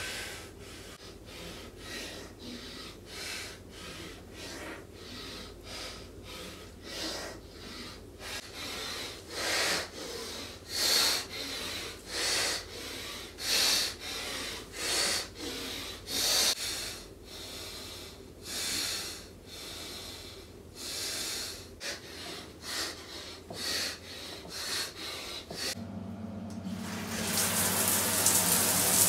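A man breathing hard from exercise, with short forceful exhales about once a second through sets of pike push-ups and squats. About three seconds before the end, a shower comes on and water runs steadily.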